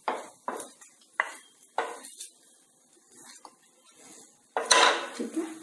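A spatula scraping and knocking against a tawa as fried potato patties are lifted off it: a few short scrapes in the first two seconds, then a louder, longer scrape near the end.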